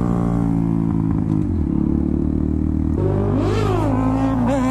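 Motorcycle engine running under way, dropping in pitch about a second and a half in. About three seconds in, the sound cuts abruptly to another stretch where an engine revs up and falls back.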